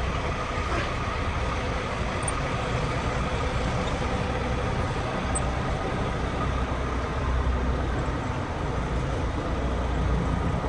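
Semi truck's diesel engine running steadily at low speed while the truck is eased forward and repositioned.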